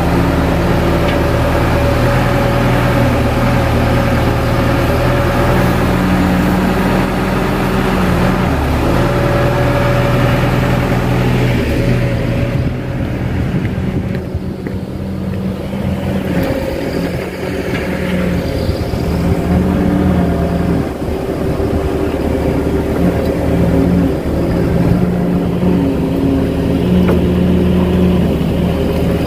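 Long-tail boat engine running steadily, driving a steel barge along a canal.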